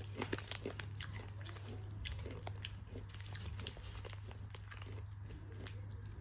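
A person chewing food close to the microphone, with many small crunching clicks.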